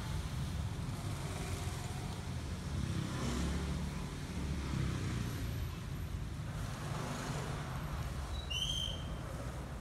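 Steady street traffic rumble from passing road vehicles, with a brief high chirp near the end.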